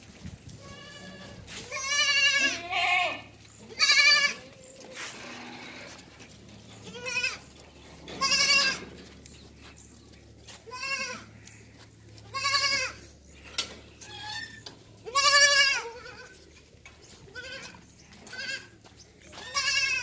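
Several goats bleating repeatedly, about a dozen separate wavering bleats, each under a second long, some loud and some fainter.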